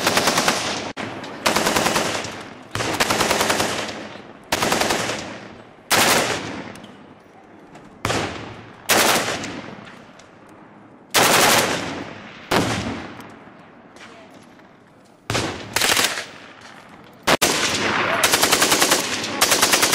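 Full-automatic rifle fire in short bursts, about a dozen of them a second or two apart, each trailing off in an echo, with a longer burst near the end.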